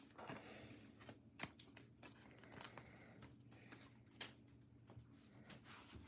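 Faint rustling and scattered light clicks of trading cards being handled and put away, over a steady low hum.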